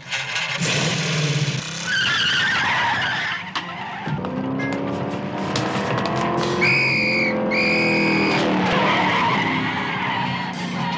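Soundtrack car chase: a car engine revving hard with tyres screeching, including two long, high squeals just past the middle.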